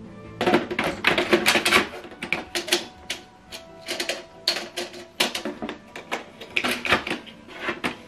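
Plastic clicks and clatter of an HP 135A toner cartridge being pushed into an HP LaserJet M209dwe laser printer and seated. The clicks come in an irregular run of sharp taps and rattles, several each second.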